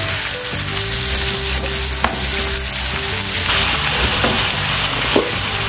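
Sliced zucchini and vegetables sizzling steadily as they sauté in hot vegetable oil in a pot, with a few sharp taps partway through. Background music plays underneath.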